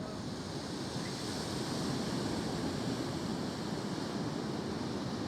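Sea waves washing in a steady rush, growing a little louder about a second and a half in, with some wind on the microphone.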